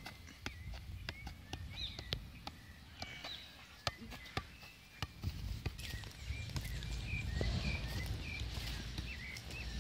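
Small birds chirping over and over in short, quick calls, with sharp taps scattered through as a soccer ball is kept up and kicked. A low rumble underneath gets heavier about halfway through.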